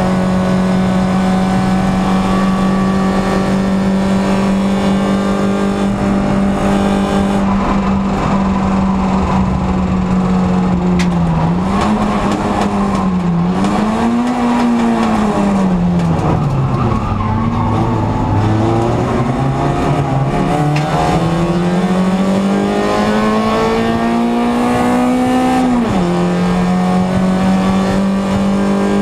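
Racing car's engine heard from inside the cockpit at race pace: held at steady high revs, then the revs dip and rise several times through the bends, climb steadily, and drop suddenly with an upshift near the end before holding steady again.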